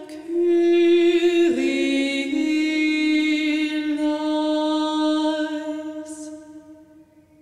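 A woman singing alone, unaccompanied, the closing phrase of a hymn: a step down in pitch, then one long held final note that fades away near the end.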